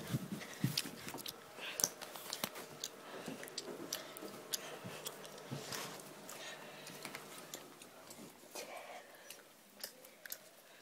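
Handling noise from a handheld camera being carried and moved about: scattered clicks, scrapes and rubbing close to the microphone, with faint voices underneath.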